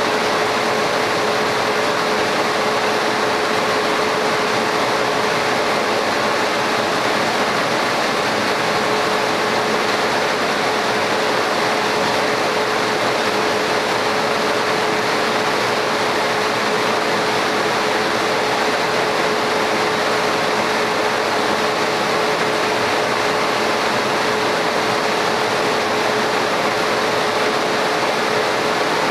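Laser cutting machine running steadily: an even rush of moving air with a steady mid-pitched hum.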